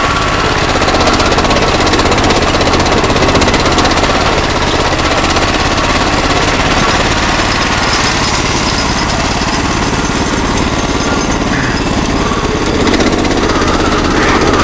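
Wheel Horse garden tractor's small engine running loud and close, a rapid steady chatter of firing pulses, as the tractor crawls over rocks.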